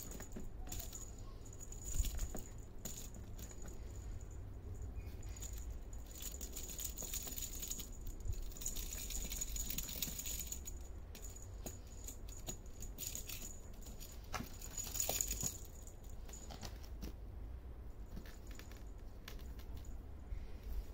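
Kittens pawing at plastic balls, a rattle ball and tinsel in a box lined with a satin sheet: scattered light clicks and rattles with rustling, louder for a couple of spells midway and about three quarters through.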